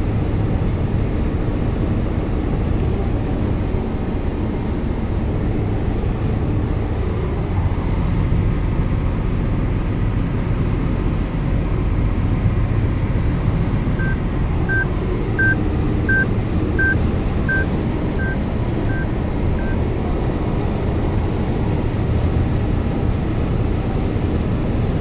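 Steady road and engine noise inside a car's cabin at highway speed. From about halfway through, the car sounds a run of about nine short, evenly spaced high beeps, a little under a second apart.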